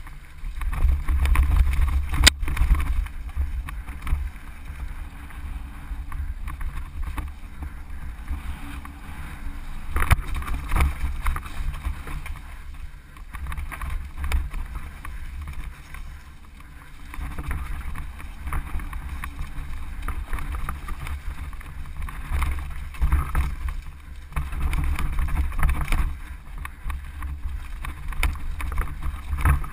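Mountain bike riding fast down a rocky dirt trail, heard from a camera on the bike or rider: a heavy, uneven rumble of wind on the microphone mixed with tyres on dirt and stones and the rattle of the bike. A sharp knock from an impact comes about two seconds in, and another near ten seconds.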